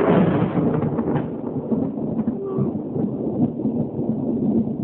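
Loud thunder from a lightning strike about half a mile away, rumbling on with crackles and easing a little over the seconds.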